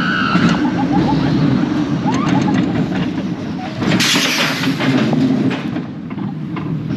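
Mack Rides steel wild mouse coaster car running along its track, a steady rumble of wheels on the steel rails with clicks and rattles, and a burst of hiss about four seconds in.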